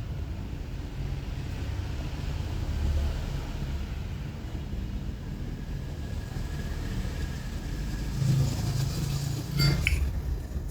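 Steady low rumble of road traffic, with a short metallic clink and brief ringing near the end from the vintage Zippo lighters being handled.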